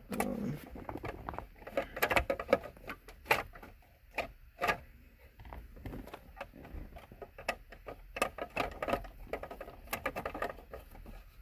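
Irregular light clicks and knocks of plastic steering-column cover pieces and a screw being worked in by hand.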